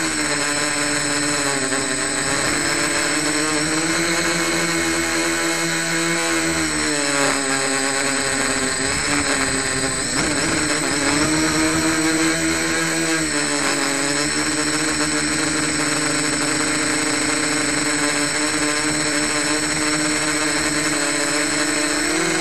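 Home-built quadcopter's electric motors and propellers buzzing up close, as heard from a camera on the craft itself. The pitch dips and rises back three times as the throttle is eased off and brought up again, with a steady high-pitched whine above it.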